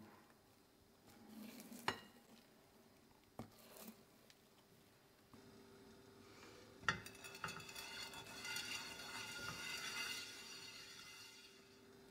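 A spatula folds whipped egg whites into batter in a ceramic bowl, with a few knocks against the bowl. About seven seconds in there is a knock, then about four seconds of soft crackling sizzle as oil is brushed across a hot nonstick pan.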